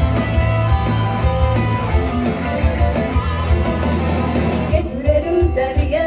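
Idol pop song playing loudly over a sound system, with a dense backing track and a strong, steady beat. About five seconds in, a young woman's singing voice comes in over it.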